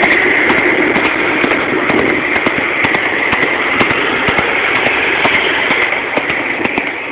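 A horse's hooves clopping on an asphalt road at a steady pace, over continuous traffic and engine noise.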